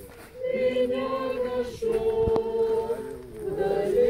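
A group of voices singing a slow hymn in long, held notes, with brief breaths between phrases and one sharp click a little past halfway.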